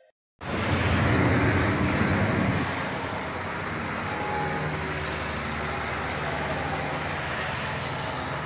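Heavily loaded truck driving along the road, its engine running with road and traffic noise. It starts suddenly about half a second in, is loudest for the next two seconds, then holds steady with a low engine hum.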